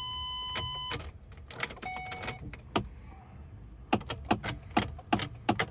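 A 2007 Ford Escape's dashboard warning chime sounds, followed by a second, lower chime, then a quick run of clicks and jangling as the ignition key is worked, with no engine cranking or starting. The blinking security light marks the car refusing to start, a fault later traced to a poor battery-to-body ground.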